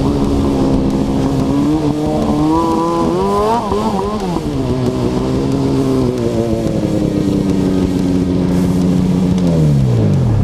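Snowmobile engine running under way: the pitch climbs about three seconds in, wavers and drops around four seconds, holds steady, then falls away near the end as the sled slows.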